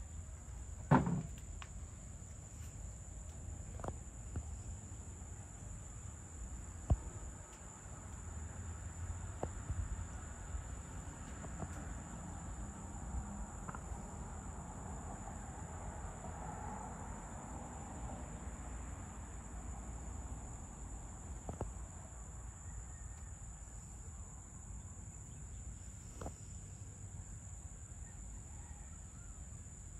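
Steady high-pitched chorus of crickets or similar insects, over a low rumble. A brief sharp sound about a second in stands out above the chorus, and a smaller click comes about seven seconds in.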